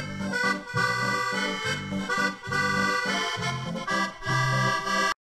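Accordion playing a tune: melody notes held over a steady pulse of bass notes and chords, about two beats a second. The music cuts off abruptly just before the end.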